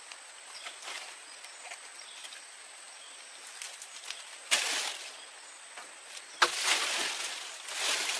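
Outdoor ambience with a faint steady high-pitched tone, broken by short bursts of rustling or scraping noise: one about four and a half seconds in and two more near the end.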